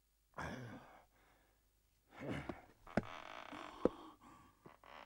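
Quiet sighs and breathy murmurs from a man, two short ones with a pause between. Two sharp light clicks follow, about three and four seconds in.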